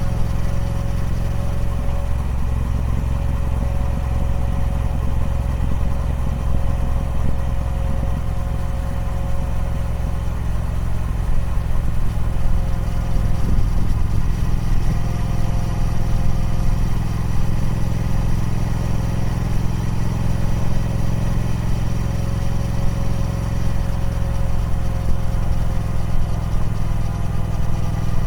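Triumph Speed Twin 1200's parallel-twin engine running steadily through its stock exhaust, holding a fairly even note with small changes in texture.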